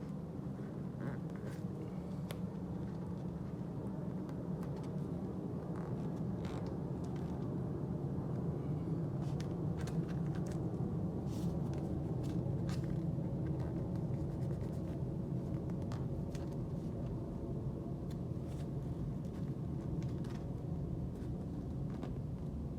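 A steady low rumble, with faint small clicks and rustles scattered through it.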